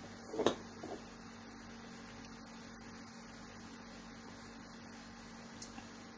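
Steady low electrical hum over faint hiss, with one brief sound about half a second in.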